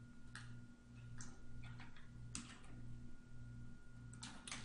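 A few faint, separate clicks from a computer mouse and keyboard, with a quick group of clicks near the end, over a steady low electrical hum.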